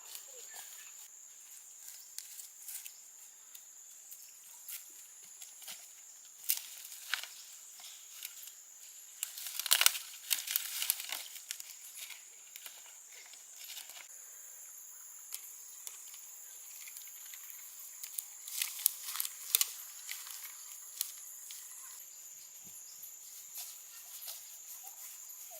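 Steady high-pitched insect drone, with scattered crackling and rustling sounds that cluster about ten seconds in and again near twenty seconds.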